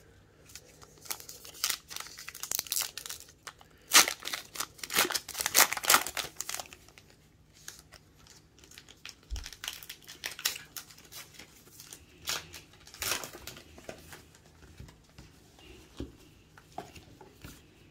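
Trading-card pack wrappers crinkling and baseball cards being handled and flipped through, in irregular bursts of rustling with quieter gaps between.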